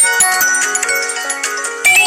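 A phone ringtone playing a quick melody of short high notes over a held lower note. It jumps louder just before the end as a new phrase starts.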